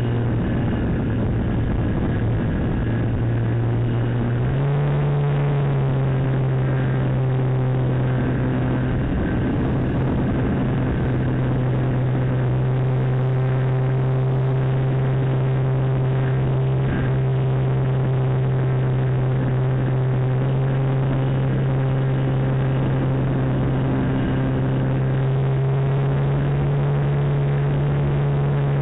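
Electric motor and propeller of an RC motor glider running at steady throttle, a whine with a rush of air, heard from a camera mounted on the plane. The pitch steps up about four to five seconds in, as the throttle is opened.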